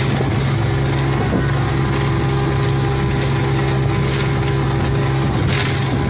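A motorboat's engine running steadily with a low drone, over a constant rush of wind and water noise, with a brief louder splash or gust about five and a half seconds in.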